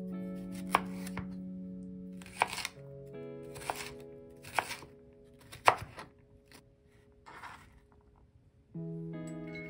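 Chef's knife cutting carrots on a cutting board: about six sharp cuts a second or so apart, over soft background music that drops out for a couple of seconds near the end.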